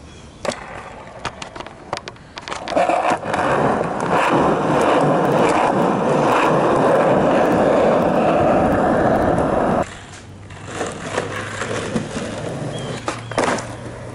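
Skateboard wheels rolling over rough asphalt: a steady, loud rolling noise from about three seconds in that cuts off suddenly near ten seconds. Before it come a few clicks and knocks, and after it the rolling is quieter, with occasional clicks.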